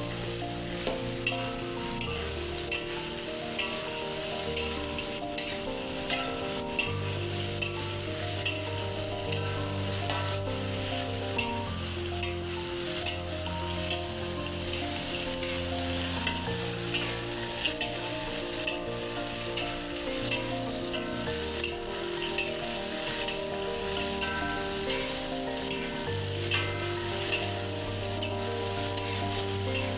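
Peanuts sizzling in hot oil in a wide metal wok while a spatula stirs them steadily, scraping against the pan with many short clicks.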